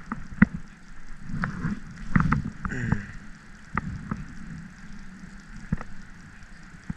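Scattered knocks and clicks, about six over several seconds, from fishing gear being handled in a kayak while a small fish is brought in, over a low steady rumble.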